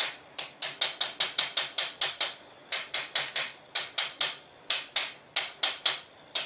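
Rapid light taps of a small mallet driving an M1 Garand's tight-fitting gas cylinder onto the barrel: about five sharp taps a second in runs, with brief pauses between them.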